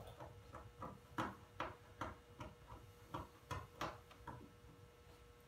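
Transfer tape being peeled slowly off a dry-mounted carbon-fibre vinyl knee-panel graphic, a string of faint, irregular ticks as the adhesive lets go, stopping a little after four seconds in.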